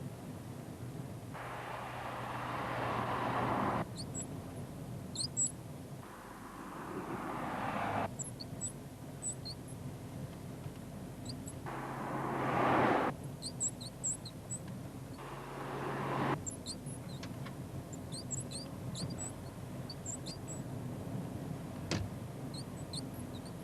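Short high-pitched squeaks in quick clusters, the mystery squeak in a Volkswagen, coming and going over stretches of car running noise that start and stop abruptly. A single sharp click near the end.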